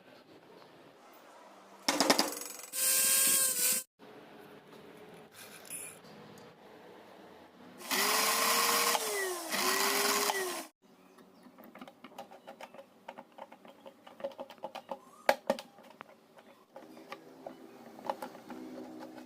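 A small high-speed electric motor run in short bursts, twice, each time winding up and dropping in pitch as it is switched on and off. Light clicks and rattles of handling follow near the end.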